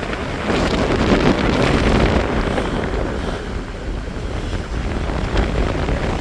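Storm wind buffeting the microphone in loud gusts, a dense rumbling blast of wind noise that swells about a second in and eases a little midway.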